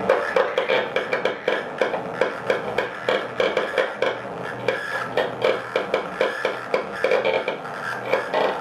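Free-improvised cello and no-input mixing board playing together: a dense, irregular stream of rapid clicks and scraping over a steady low hum.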